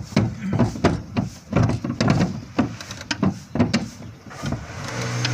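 Toyota Vios engine cranking on the starter motor with a rhythmic chug about three times a second for roughly four seconds, then catching near the end and settling into a steady idle. The long crank is the hard starting that began once the fuel-pump strainer was replaced, which the mechanic suspects the strainer of causing.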